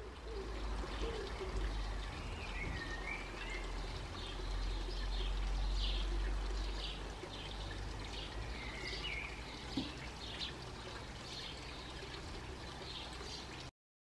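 Garden water feature pouring in a steady stream onto stone, over a low rumble, with small birds chirping repeatedly in short high notes. It all cuts off suddenly near the end.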